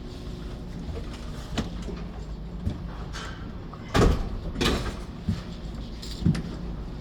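Scattered knocks and clatters from hands working with wiring materials and electrical boxes. The two loudest come about four seconds in, with smaller taps before and after.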